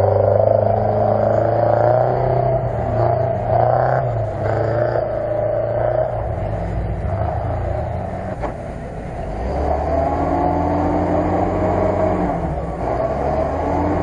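UAZ-469 off-road engine running under load and revving, its pitch rising and falling as the 4x4 works through deep mud.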